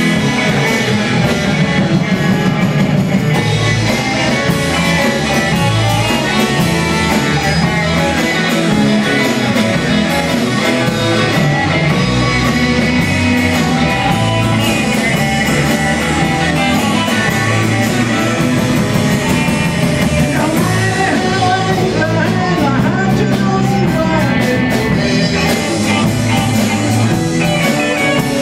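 A live band playing amplified music, with electric guitar, electric bass and keyboard, steady and loud throughout.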